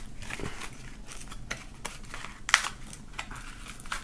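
A small, tight cardboard box being pried open by hand. Its stiff flaps scrape and crackle, with a few sharp clicks, the loudest about two and a half seconds in.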